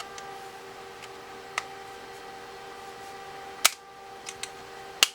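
Sharp clicks and snaps as an iPod Classic's metal back cover is pressed onto the front shell and its retaining clips latch: a few scattered clicks, with two loud snaps about three and a half and five seconds in.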